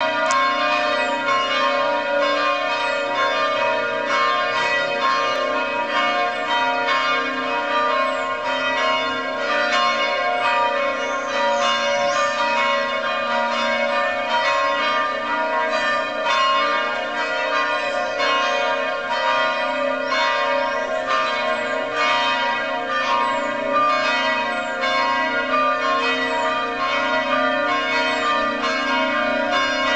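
Church bells pealing continuously, struck in a quick, steady run with their tones overlapping and ringing on.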